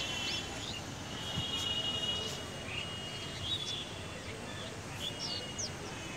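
Small birds chirping in short, scattered high calls over steady outdoor background noise.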